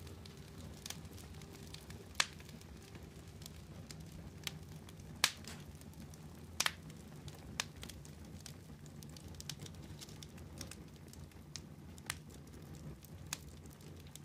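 Wood fire burning down to embers, a low steady rumble under scattered sharp crackles and pops at irregular intervals, the loudest pops about two and five seconds in. It cuts off suddenly at the end.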